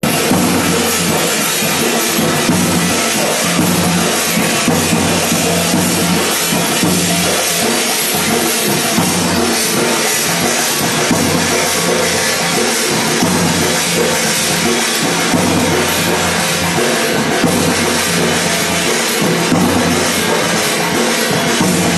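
Dhol drum beaten with a stick together with a metal thali plate struck alongside it, playing a Gair dance rhythm without a break.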